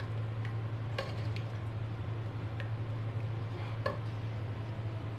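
A few sparse soft clicks of a plastic ladle stirring a pot of cornflour-thickened sauce, over a steady low hum.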